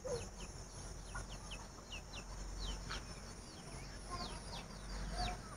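Faint bird chirping: many short, falling peeps, one after another.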